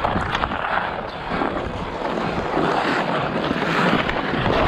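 Ice skate blades scraping and gliding over outdoor rink ice in strides, with wind buffeting the microphone.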